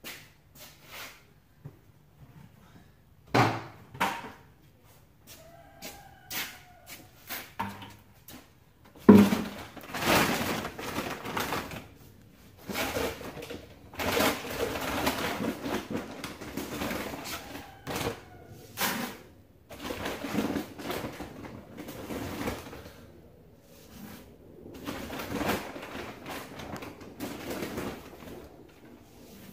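Feed bags and containers handled with a series of knocks and thuds, the loudest about nine seconds in, then repeated rustling rushes of dry chicken feed being scooped and poured into a bucket.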